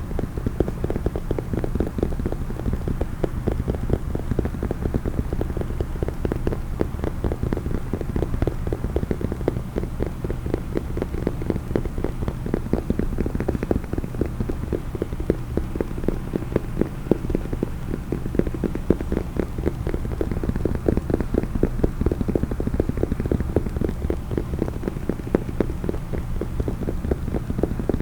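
Rapid, continuous tapping on a case, many taps a second without a break.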